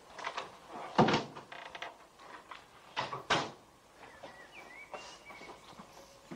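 Knocks and thumps of a large wooden panel and furniture being handled. The loudest knock comes about a second in, two more come around three seconds in, with small clicks between them and a faint high squeak near the middle.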